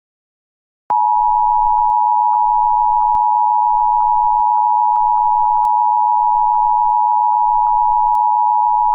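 Emergency Alert System attention tone: a steady electronic tone just under 1 kHz. It starts about a second in and holds unchanged, then cuts off suddenly near the end.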